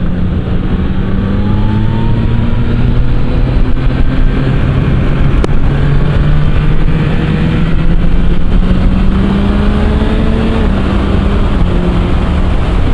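2024 Yamaha MT-09 SP's three-cylinder engine through an Akrapovič exhaust, running under way as the bike rides: the engine note climbs slowly under light throttle, then drops in pitch near the end on an upshift. Steady wind rush runs underneath.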